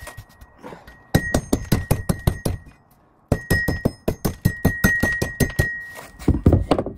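Hammer rapidly bashing brick and mineralized rock into chunks, about six blows a second with a ringing metallic note. There are two runs of blows, one starting about a second in and a longer one starting about three seconds in.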